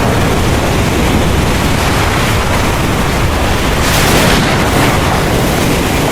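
Heavy rain pouring steadily over a deep, continuous rumble of thunder. The hiss of the rain swells briefly about four seconds in.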